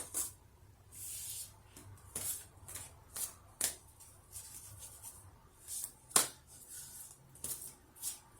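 Oracle cards being handled and shuffled: irregular sharp card clicks and short soft rustles.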